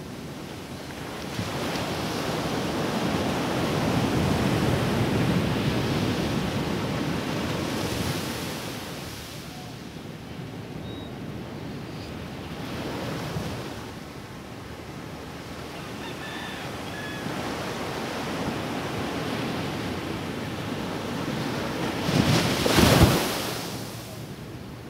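Small waves breaking and washing up a sandy beach, the surf swelling and ebbing in several surges, with a brief loud rush near the end.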